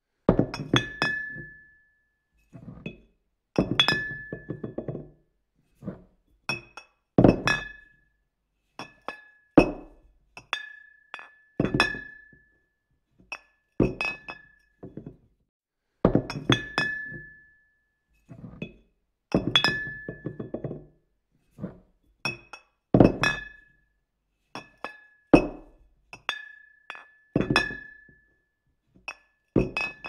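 Glass clinking in a repeating pattern: clusters of sharp clinks every two to three seconds, the loudest with a dull knock beneath and a brief ringing tone after.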